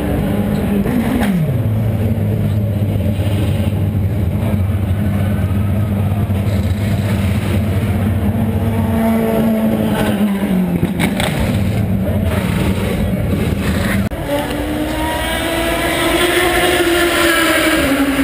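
Indy car Honda V8 engines running: a steady engine drone whose pitch drops about a second in and again around ten seconds. Near fourteen seconds the sound changes abruptly to the engine notes of cars at speed, rising and falling as they go by.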